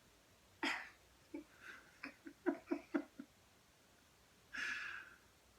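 Soft, breathy laughter: one burst of breath, then a run of short quick giggles about four a second, then a long breathy laugh near the end.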